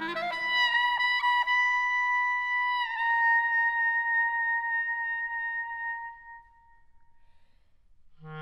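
Solo clarinet: a quick upward run into a long held high note that dips slightly about three seconds in and fades away by about six seconds. A short silent pause follows, and a fresh flurry of fast notes starts right at the end.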